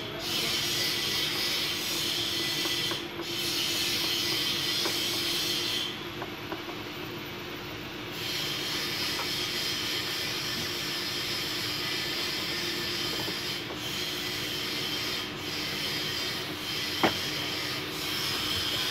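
Steady mechanical background noise with a constant hum, and one sharp click near the end.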